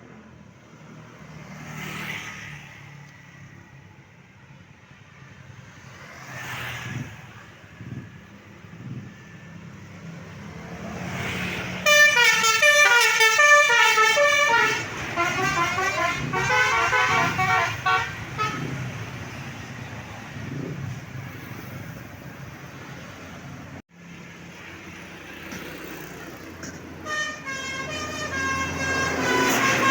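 Tour bus 'telolet' Basuri multi-tone horn playing a quick tune of stepped notes for about six seconds, starting about twelve seconds in, and again near the end. Road traffic rumbles throughout, and vehicles whoosh past twice early on.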